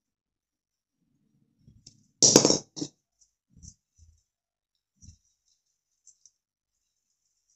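Handling noise as hands work among the branches of an artificial Christmas tree to place a bauble: light rustling and small clicks, with one short loud rattle a little over two seconds in and a smaller one just after.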